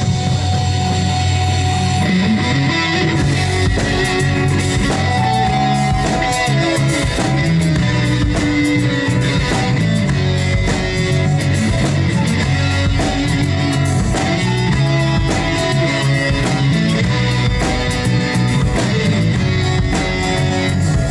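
Rock band playing live, an instrumental introduction with electric guitar, bass and drums.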